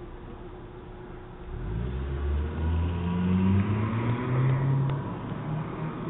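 A car engine accelerating as the car pulls away down the street, rising in pitch and then fading near the end.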